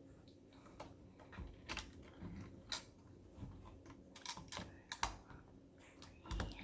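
Plastic Lego bricks and small pieces clicking and tapping as they are handled and pressed together, in quick irregular clicks.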